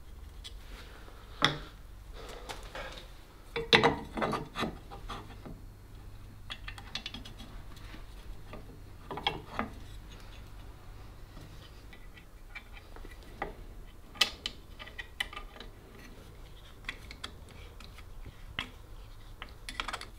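Metal parts of a Stanley Bedrock No. 608 hand plane being reassembled with a screwdriver: scattered clicks, taps and short scrapes as the frog screw is turned and the lateral adjustment lever is fitted. The loudest clatter is a cluster about four seconds in.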